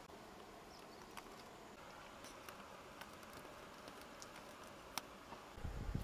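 Faint quiet background with a few scattered light clicks, then, near the end, low rustling and bumping as hands handle chicken eggs in a wicker basket.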